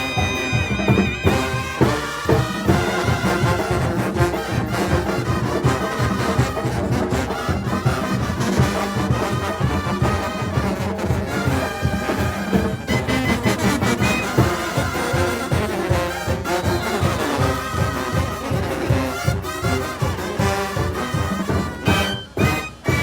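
Live Mexican brass band (banda) playing: trumpets and trombones over a steady, pulsing drum-and-bass beat. The music dips briefly near the end.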